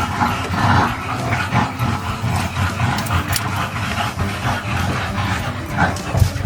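A dog whimpering and yipping, over a low steady rumble.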